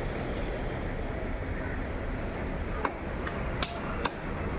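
A large knife striking tilapia on a wooden chopping block: four sharp knocks in the second half, over a steady background din with faint voices.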